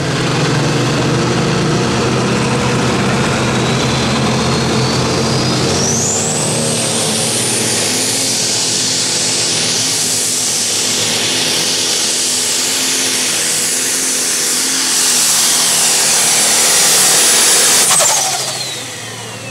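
John Deere pro stock pulling tractor's turbocharged diesel running flat out while dragging the sled, with a high turbo whistle climbing over the first few seconds and then held. Near the end the engine grows louder still, then the throttle is let off and the whistle winds down.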